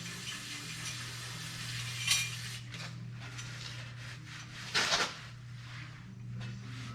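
Metal tools and parts clinking and scraping during hands-on work, with a sharp clink about two seconds in and a louder short clatter near five seconds. A steady low hum runs underneath.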